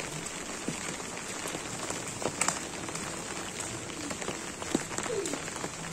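Steady rain falling on a wet paved court, with scattered short splashes and slaps of water as children slide and play in the puddles.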